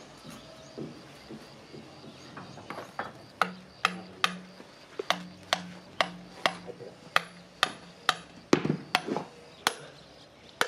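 A hand hammer striking the steel casting flask of a brake-drum sand mould: about a dozen sharp, metallic blows, roughly two a second, starting about three seconds in.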